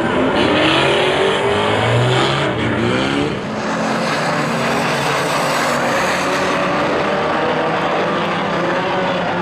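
Several unlimited banger racing cars' engines revving hard at once over a dense rush of track noise, their pitch rising and falling, most busily in the first three seconds.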